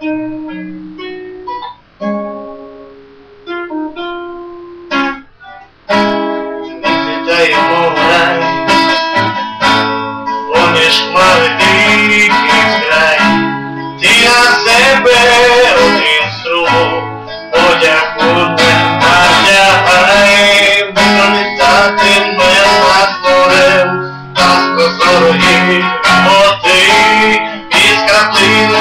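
Classical nylon-string acoustic guitar: a few slow single plucked notes, then loud rhythmic strummed chords from about six seconds in.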